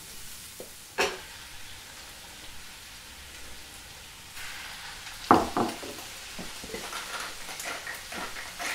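Duck livers going into foaming butter in a stainless steel frying pan: a faint hiss, then about four seconds in a louder sizzle starts and keeps crackling and spitting. There is a loud knock just after the sizzle begins.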